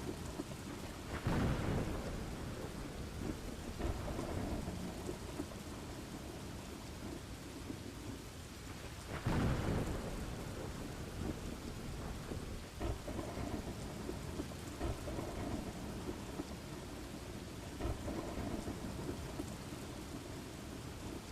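Thunderstorm ambience: steady rain with rolls of thunder. The two loudest thunder swells come about a second in and a little before the middle, with smaller rumbles after.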